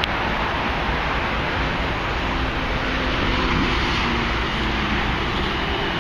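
NJ Transit commuter train approaching the station, a steady rumble blended with road traffic noise from the highway alongside the tracks.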